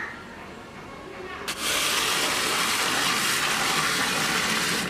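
Running water pouring from a hose into a clay pot of cut green figs, starting suddenly about a second and a half in and then rushing steadily.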